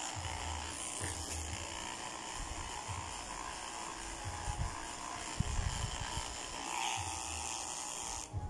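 Electric pet clippers running steadily as they shave a Maltese terrier's coat, switched off near the end.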